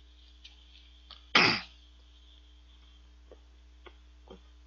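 A man gives one short, sharp cough about a second and a half in, with his mouth full of food, and a few faint mouth clicks from chewing come before and after it.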